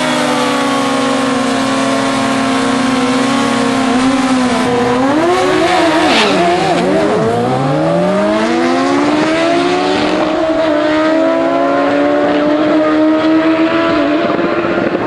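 Sport motorcycle engines at a drag strip, held at high revs, revved up and down several times around the middle, then a steady high note that climbs slowly.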